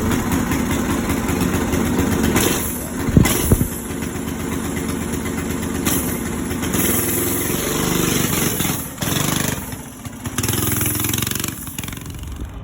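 Small engine from a Ridgid pressure washer on a homemade mini-bike running, its speed rising and falling. There are two sharp knocks about three seconds in.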